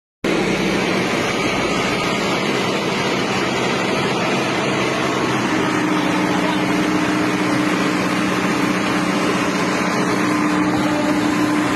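Diesel engine of a backhoe running steadily close by, with a steady hum joining in about halfway through as the arm is held in place.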